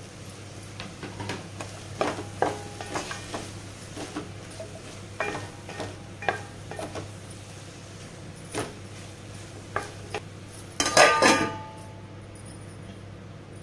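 Wooden spatula stirring mushrooms in a steel pot, knocking and scraping against the metal in a run of short clacks. Near the end a steel plate is set on the pot as a lid, clattering briefly with a short metallic ring.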